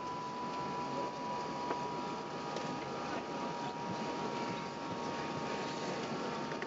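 Steady cabin noise inside an Airbus A380 on the ground after landing: a constant rushing hum with a thin, steady high whine running through it.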